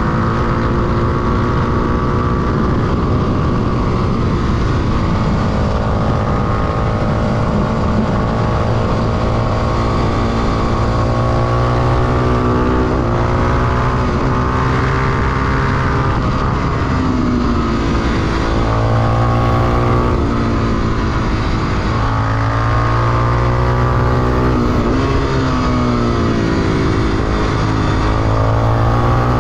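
Honda XR250 Tornado's single-cylinder four-stroke engine, ridden hard at track pace: its pitch climbs under acceleration and drops off again several times as the rider shifts and brakes for corners.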